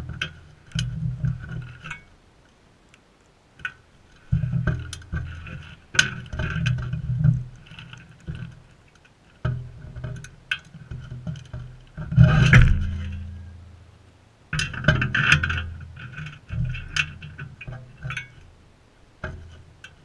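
Sulphur-crested cockatoos feeding at a metal dish right by the microphone: irregular clicks, taps and knocks of beaks and feet on the dish, with low thumps, the loudest about twelve seconds in.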